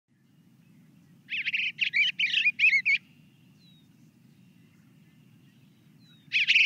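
Recorded eastern bluebird song: a short phrase of quick warbled notes lasting about a second and a half, then a second phrase starting near the end, over a faint low steady background hum in the recording.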